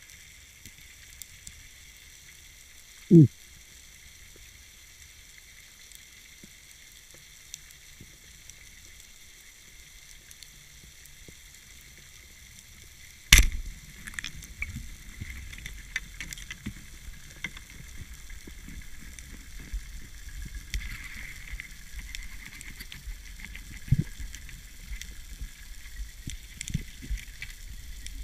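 Underwater sound with a steady crackling hiss, a short falling tone about three seconds in, and then a single loud sharp crack about halfway through: a speargun firing. The crack is followed by uneven rumbling and knocks of water movement.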